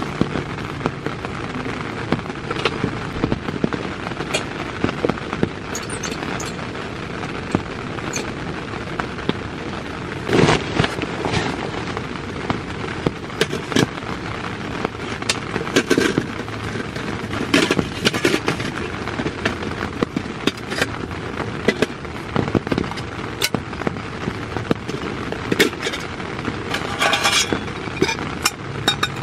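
Heavy rain drumming steadily on the tent fabric, with scattered sharp clicks and knocks as a small gas canister stove and a metal cooking pot are handled.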